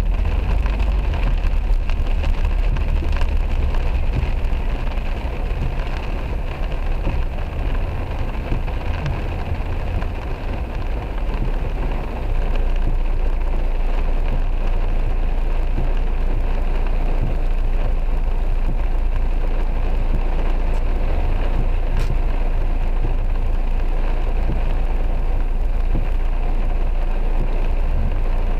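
Heavy rain on a car's roof and windscreen, heard from inside the cabin, over a steady low rumble of engine and road.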